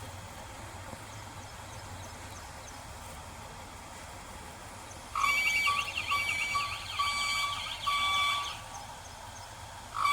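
Low steady machinery hum. About five seconds in, an electronic warning alarm starts, pulsing about twice a second with a warbling tone, for around three seconds.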